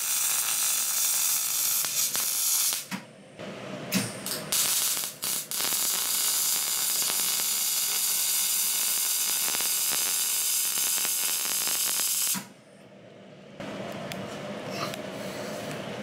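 MIG welder arc crackling and hissing as it welds a steel straight pipe onto an exhaust pipe. It comes in runs: a couple of seconds, a few short tack bursts, then one long continuous bead of about seven seconds that stops about twelve seconds in.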